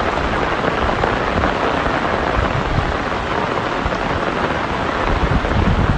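Torrential rain pouring down, a loud, steady hiss, with low rumbling buffets that grow near the end.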